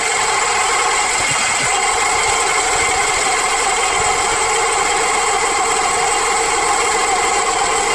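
Car engine idling, heard up close at the alternator, with a steady whine over the running sound. The alternator is failing: it is not charging, and the noise is taken to come from it.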